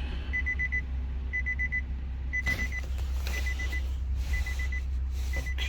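Electronic warning beeps at a single high pitch, coming in quick groups of four, one group about every second, while a car is being put through smart-key programming with the ignition on.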